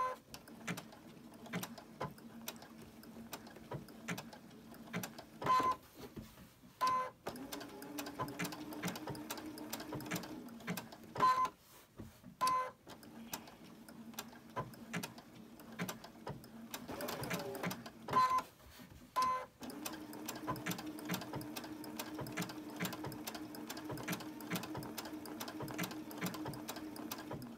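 Electronic sewing machine stitching an appliqué edge in several short runs, stopping and starting again as the work is turned, with brief beeps at each stop and restart.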